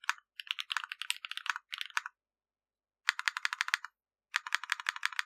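Typing on a Zoom75 gasket-mount mechanical keyboard with Krytox-lubed HMX Cheese linear switches, a carbon fibre plate and PBT doubleshot keycaps. Irregular keystrokes run for about two seconds, then stop for about a second. Two quick runs of rapid keystrokes follow.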